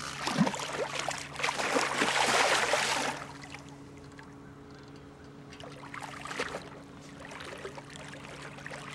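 Water splashing and sloshing for about the first three seconds, a hooked blue catfish thrashing at the surface beside the boat, then a quieter stretch with a steady low hum.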